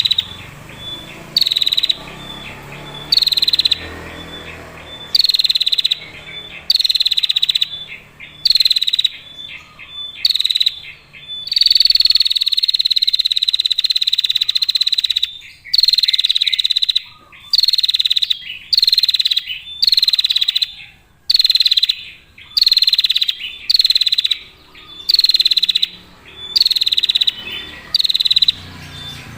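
Female prinia (prenjak) giving its long, buzzy trilling call, repeated every second or so, with one unbroken trill of several seconds near the middle.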